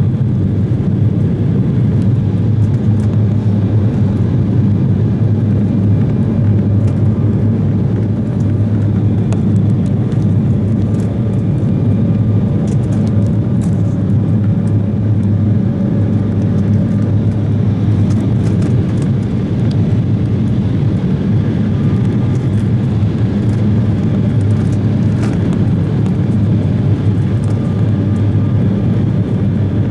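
Cabin noise of a J-Air Embraer 170 regional jet in flight: a steady, loud, low roar of the turbofan engines and airflow, with a few faint ticks and rattles.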